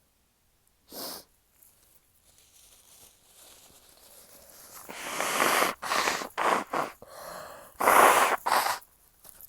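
A young woman's induced sneezes: a short breath, then a breathy build-up growing louder, then a run of sneezes in quick succession from about halfway, with the loudest near the end.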